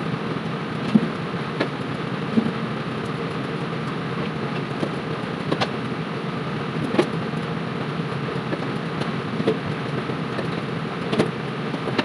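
Steady mechanical drone of commercial kitchen equipment, with a few light clicks and clinks.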